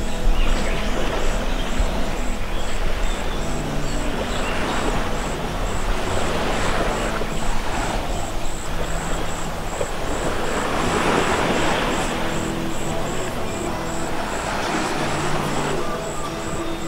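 Background music with a steady high ticking beat, about three ticks a second, over low held notes and slow swells.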